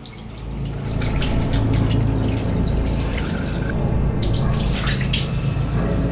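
Bathroom washbasin tap running into the sink while hands and face are washed under the stream, with water splashing.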